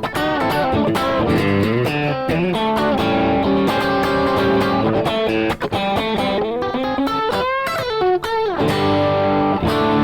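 Electric guitar played through a Rad Custom Shop Valkyrie overdrive pedal, a light drive based on the Vemuram pedal, running a melodic lead phrase. From about two thirds of the way in the notes bend and waver with vibrato, then settle into sustained ringing notes near the end.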